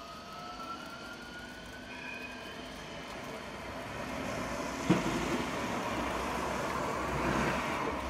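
Electric trams running on snowy street track: a whine rising in pitch as a tram's drive pulls away at the start, then a sharp knock about five seconds in and a rumble of wheels on rail that swells as a tram passes close.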